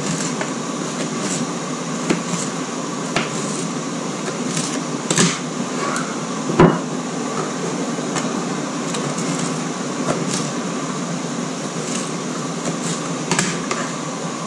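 Steady machine hum, like a kitchen fan or appliance motor, with a few scattered light clicks and knocks.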